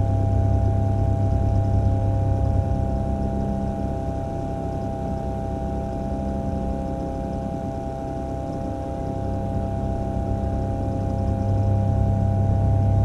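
Quail egg incubator's automatic egg-turning motor running with a steady mechanical hum as the egg tray slowly tilts. The low hum is strongest for the first couple of seconds and again over the last few, weaker in between, over a constant higher whine.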